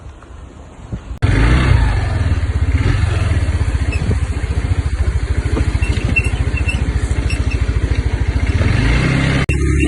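Small motorcycle engine running steadily with a fast, even pulsing, starting abruptly about a second in after faint wind, with a brief break near the end.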